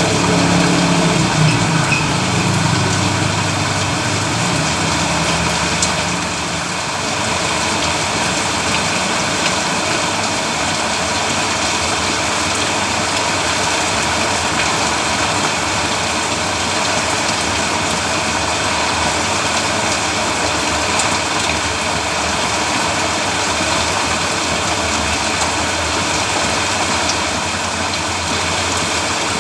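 Steady, heavy rain falling on a road: an even, continuous hiss. A lower engine-like hum sounds in the first three seconds or so, then fades.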